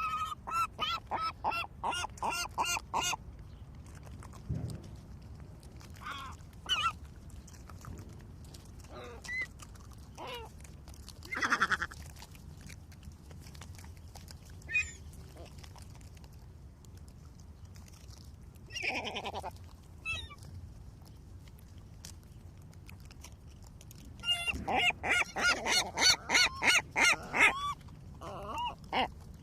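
Seagulls calling. A quick run of repeated yelping calls opens it, single calls are scattered through the middle, and a dense burst of calls comes near the end, over a low steady rumble.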